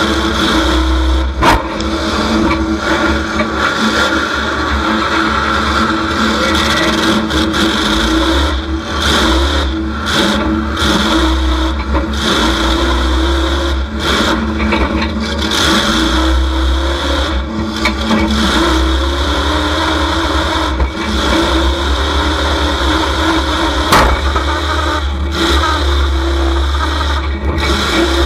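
Demolition derby truck's engine running loudly through open upright exhaust stacks, its pitch shifting up and down as it is driven, with a few sharp knocks heard from inside the cab.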